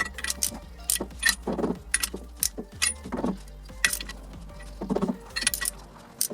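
Irregular sharp metallic clicks and clinks of hand tools on the pinion nut and flange of a GM 7.5-inch 10-bolt rear axle, as the nut is tightened against its crush sleeve. A low hum runs beneath and stops near the end.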